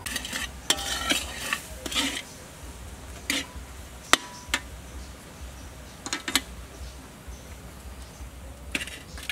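Metal spatula scraping and clinking against a steel wok while stirring beef in a thick sauce, in irregular strokes. The sharpest clink comes about four seconds in.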